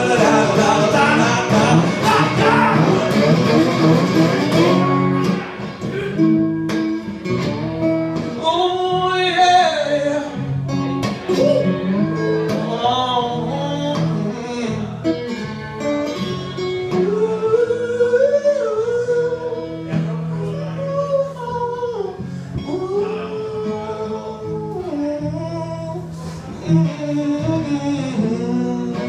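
Live acoustic music: a guitar played flat on the lap with a slide, its notes gliding in pitch, with a man's wordless singing over it. It is full and loud for the first few seconds, then thins out to sparser sliding phrases.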